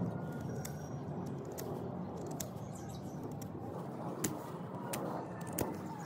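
A large serrated knife cutting into a thin apple stick to shape a graft, giving a few faint, sharp clicks, the two strongest about four and five and a half seconds in. A steady low outdoor hum sits under the clicks.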